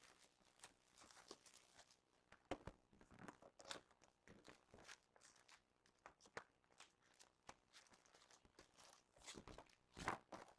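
Faint, scattered rustling, crinkling and small clicks of cardboard and plastic packaging being handled as a box of hockey trading cards is opened and its packs handled.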